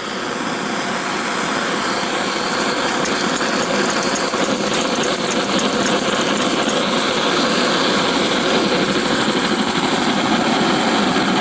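Antique paraffin blowlamp burning, its pressurised flame making a steady, noisy rush that runs a bit intermittently.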